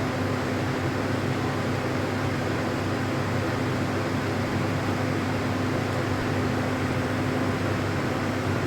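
A steady mechanical hum over an even hiss, with no shots or clicks.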